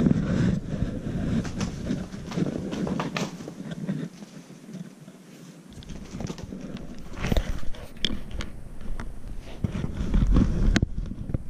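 Rustling and scuffling on tatami, with scattered clicks and knocks, as a kitten pounces on a cat-teaser toy, mixed with rumbling from a handheld phone being moved about. The rumbling is loudest at the start and again near the end.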